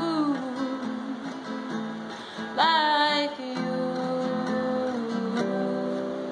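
A woman singing with a strummed acoustic guitar. She holds one loud, high note with vibrato about two and a half seconds in. A last chord is struck about five seconds in and left ringing as the sound dies down.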